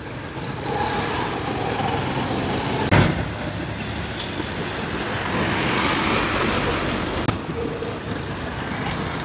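Road traffic noise, a steady roar of vehicles, with one sharp knock about three seconds in.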